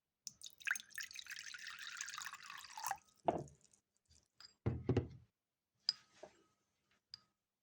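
Liquid poured into a container for about three seconds, followed by a few dull knocks and light clicks as things are set down.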